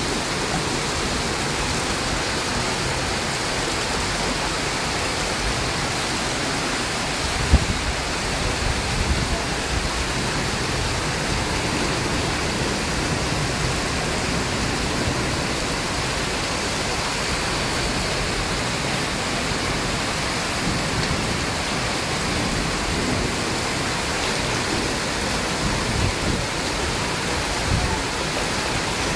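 Steady, unbroken hiss of rushing floodwater and heavy rain. There is a brief low thump about seven and a half seconds in, and a few smaller low bumps near the end.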